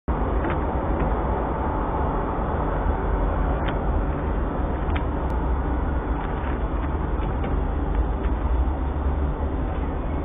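Steady low rumbling background noise with a few faint scattered clicks, heard through a webcam microphone with the highs cut off.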